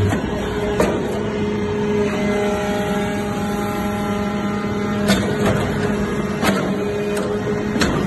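Hydraulic iron-chip briquetting press running: a steady hum from its hydraulic power unit, broken by a few sharp metallic knocks from the press.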